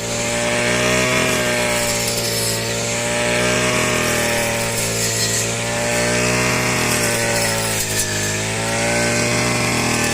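Small engine of a wheat cutting machine running steadily under load, its pitch wavering and dipping briefly about eight seconds in.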